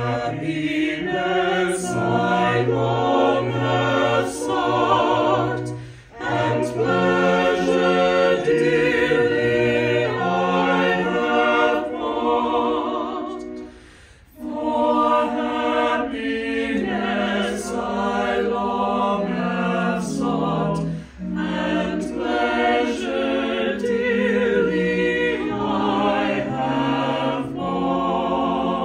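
Church choir singing a hymn in several parts, in phrases of a few seconds with short breaks between them.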